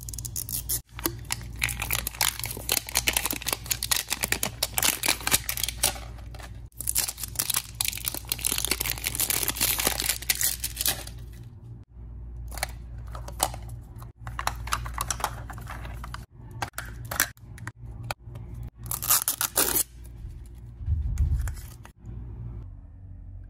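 Plastic shrink-wrap being peeled and torn off a toy capsule ball, crinkling and tearing continuously for about ten seconds. This is followed by shorter bursts of tearing and scraping as the capsule's tape seal is picked and the plastic halves are pulled apart, with a soft thump near the end.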